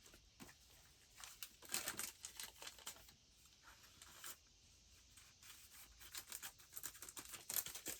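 Faint, intermittent rustling and crinkling of paper and packaging as hands handle a recipe card and gift materials, with scattered small ticks and scrapes.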